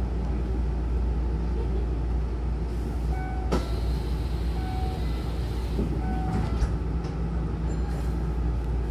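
Hankyu train standing with its low steady hum while its sliding passenger doors close: an air hiss and a sharp click about three and a half seconds in, a few short beeps, and the door leaves meeting with a thump about two-thirds of the way through.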